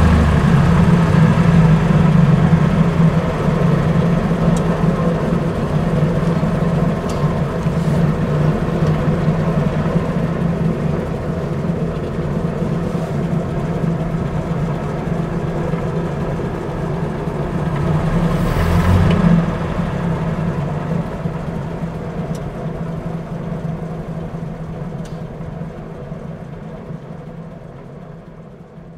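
1927 Rolls-Royce 20HP's straight-six engine running steadily, with a brief swell about eighteen seconds in, then fading out near the end.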